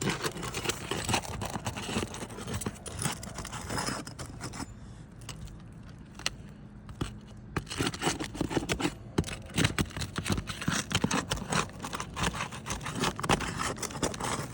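Asphalt roof shingles, old and in poor condition, being pried loose from their sealant strips: repeated scraping and crackling with sharp clicks. There is a quieter pause in the middle, then the work resumes more densely for the second half.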